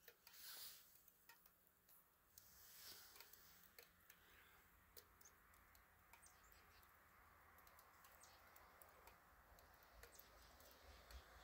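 Near silence: faint outdoor quiet with scattered small ticks and clicks.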